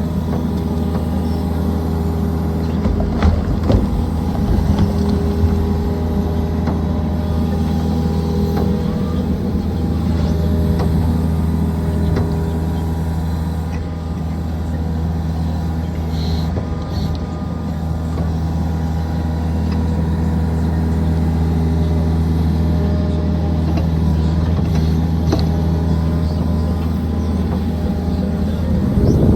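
Excavator diesel engine running steadily while digging and loading soil, with a few knocks and clunks about three to five seconds in.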